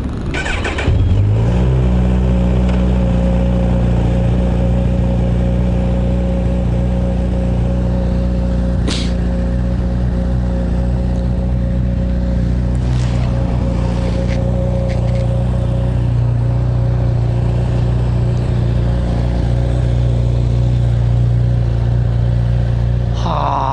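A motorcycle engine catches about a second in with a short rise in pitch, then idles steadily with an even, low hum. A single sharp click comes partway through.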